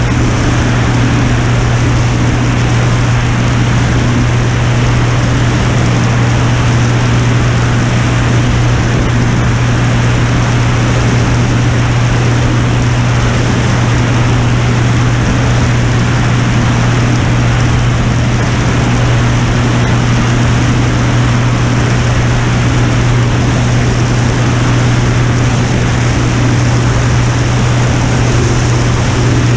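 Piper Turbo Saratoga's propeller and turbocharged six-cylinder engine in steady cruise, a loud constant drone with a low hum, over a steady rush of air noise.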